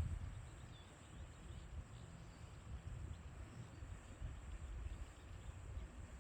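Mountain stream flowing over rocks: a steady soft rush of water with an uneven low rumble underneath and a thin, steady high tone above.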